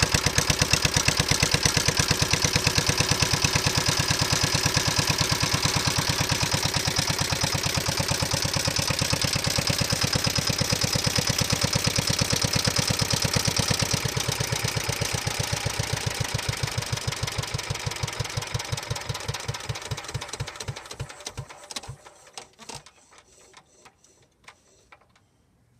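Petter PAZ1 single-cylinder diesel stationary engine running steadily with an even beat, then, a little past halfway, slowing down and fading as it coasts to a stop, with a few faint clicks at the end.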